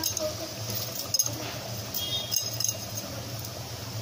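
Dry whole black urad lentils poured into an aluminium pressure cooker, the hard grains rattling and clinking against the pot and ladle, with a few sharper clinks about a second in and again past the two-second mark.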